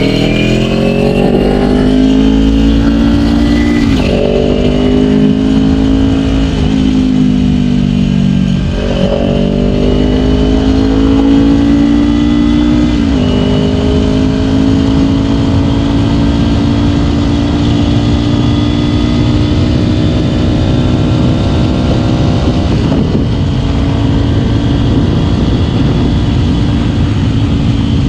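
Kawasaki Ninja 250 engine accelerating through the gears: the pitch climbs and drops sharply at upshifts about 4, 9 and 13 seconds in, then holds at steady cruising revs, with heavy wind noise on the microphone.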